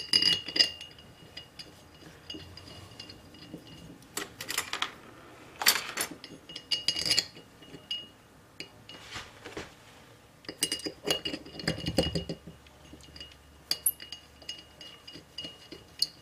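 Small metal parts clinking and tapping against the stacked aluminium plates of a gong-coiling jig as they are fitted together. The clinks are irregular, and some leave a brief metallic ring.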